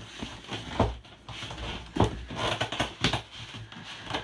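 Styrofoam packing and cardboard box being handled: scraping and rubbing, with a few sharp knocks about one, two and three seconds in.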